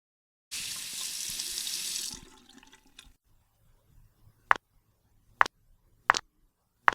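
A water tap runs for about a second and a half and trails off, as if for hand-washing. Then four sharp clicks, each under a second apart.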